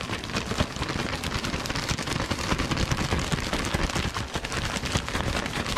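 A plastic bag of seasoned flour and egg-battered catfish chunks shaken hard by hand, making a continuous rapid crinkling rustle.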